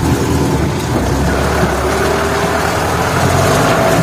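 Jeep engine running, with rumble and rattle from the vehicle on a rough dirt track; the engine pitch climbs slowly in the second half.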